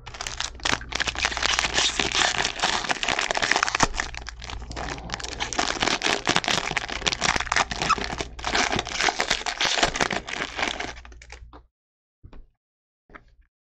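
Foil wrapper of a baseball card pack being torn open and crinkled: dense crackling for about eleven seconds that stops near the end, followed by a few faint taps.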